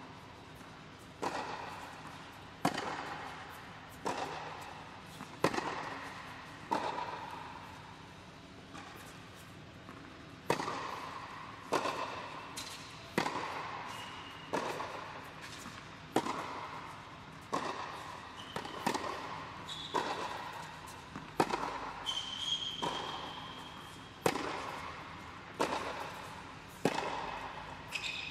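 Tennis balls struck with rackets in a steady baseline rally, a sharp pop about every second and a half with fainter bounces between, echoing in an indoor tennis hall. A few short high squeaks come in the second half.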